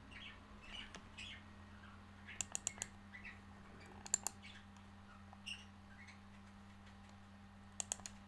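Computer mouse clicks in quick groups of three or four, a few seconds apart, over a low steady hum.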